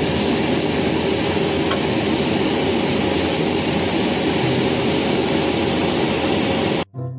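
Diesel engines of a crawler excavator and a flatbed truck running steadily under load as the excavator climbs onto the truck's bed, with a faint high steady whine on top. The sound cuts off suddenly near the end.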